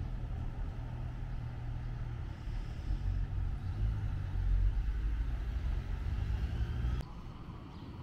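Diesel engines of a DB Class 643 (Bombardier Talent) railcar with a low, steady rumble as the train pulls away. The rumble eases a little about seven seconds in.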